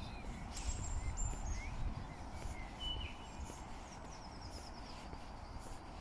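Small songbirds calling: a few short, high chirps and, in the second half, a quick high trill, over a steady low rumble and a walker's footsteps on asphalt.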